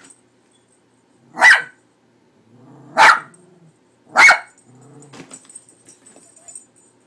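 Small dog barking three times, about a second and a half apart, each a short sharp bark.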